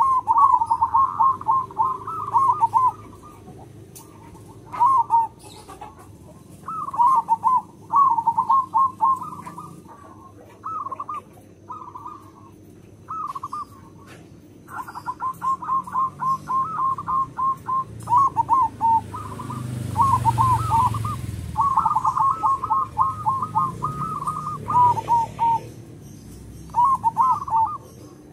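Zebra dove (perkutut) singing: repeated phrases of rapid, bouncing coos, each phrase lasting a second or two with short pauses between.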